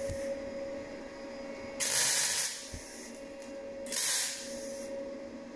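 Small bodywork MIG welder with argon/CO2 shielding gas laying two tack welds on a galvanised steel repair panel. Each tack is a crackling, hissing burst of about a second, the two about two seconds apart, over a steady hum.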